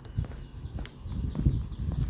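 Footsteps of a person walking, a soft thump about every half second or so. Over them a small bird gives a quick run of short, falling high notes.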